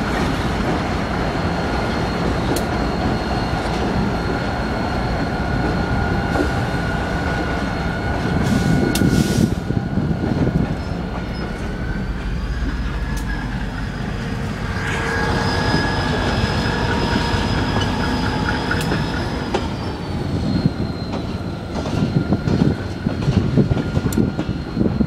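Montreal, Maine & Atlantic freight train rolling by slowly, with a locomotive and then covered hoppers and tank cars passing. Under a continuous rumble, a steady high-pitched wheel squeal rises in pitch about halfway through and drops back near the end, with scattered clicks from the wheels and cars.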